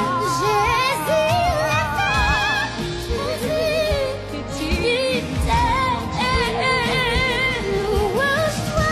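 A song: a solo voice singing with heavy vibrato and melodic runs over a backing track with a steady beat.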